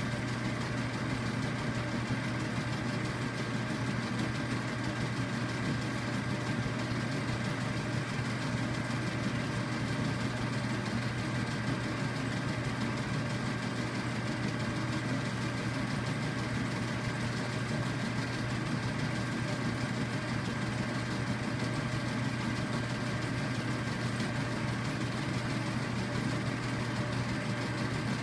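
Steady mechanical hum of a Polaroid Polarvision player's motor running as it plays a silent film cassette: a low, even drone with a faint thin whine above it.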